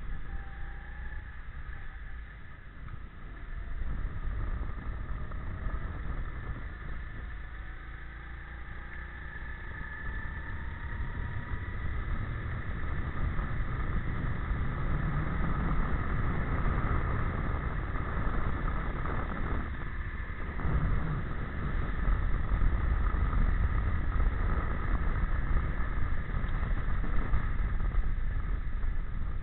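Go-kart engine running hard, its note climbing as the kart accelerates and briefly dropping when the driver lifts off, with wind rumbling on the onboard microphone.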